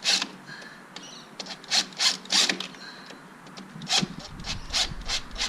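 A screw being driven by hand into a wall plug through a stone cladding slab: a run of short rasping, ratchety turns, two or three a second.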